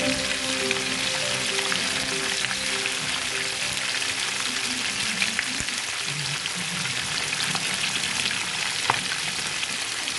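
Two whole red fish frying in hot oil in a pan: a steady sizzle with fine crackling and an occasional sharper pop.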